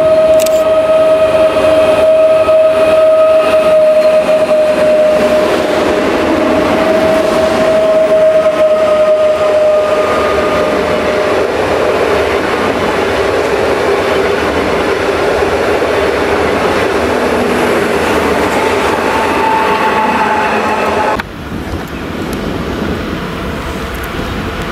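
PKP Intercity ED161 (PESA Dart) electric multiple unit passing close alongside the platform: loud wheel and rolling noise with a steady high electric tone, which settles to a lower tone about halfway through. The sound drops off abruptly about 21 seconds in, leaving a quieter rumble.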